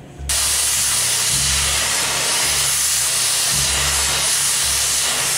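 Oxy-acetylene cutting torch hissing loudly and steadily as it cuts through the 5160 spring steel of a MacPherson strut's coil spring. The hiss starts suddenly just after the beginning.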